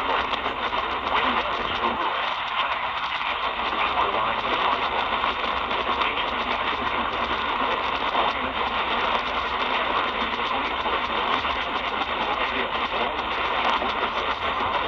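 Steady radio static: an even hiss off a radio receiver, with no speech or alert tones in it.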